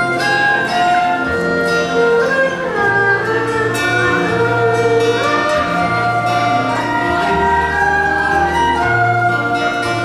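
Live Chinese-orchestra ensemble of dizi flute, erhu, guzheng and acoustic guitar playing a slow melody, with sliding melody notes over held bass notes.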